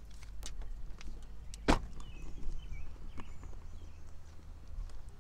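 Scattered footsteps and knocks from a handheld phone being carried while walking, with one louder knock about a second and a half in. A few faint bird chirps are heard just after it.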